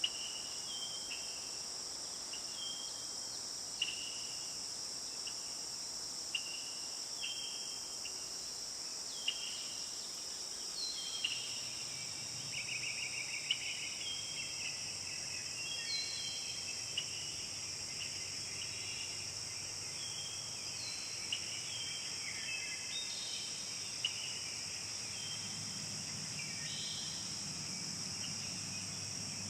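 Forest ambience: a steady, high-pitched chorus of insects such as crickets or cicadas, with short chirping bird calls repeating every second or two over it.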